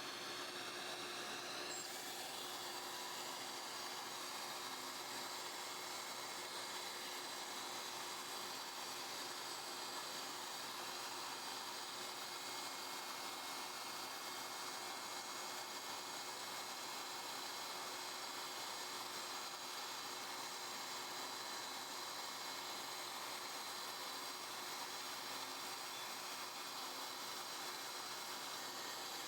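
The 50,000 RPM spindle of a Prometheus desktop PCB milling machine spins up with a rising whine over the first couple of seconds, then runs steadily with a high whine and a hiss for the drilling stage of the circuit board.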